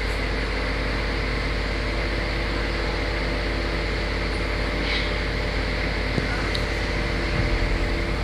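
Steady hiss with a low electrical hum, and a few faint clicks; a low fluttering comes in near the end.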